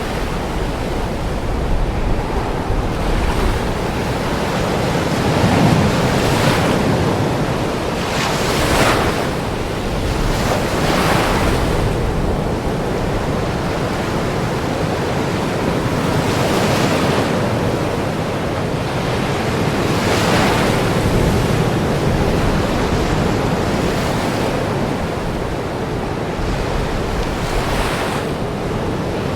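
Ocean waves breaking on a shore: a continuous wash of surf that swells every few seconds as each wave breaks.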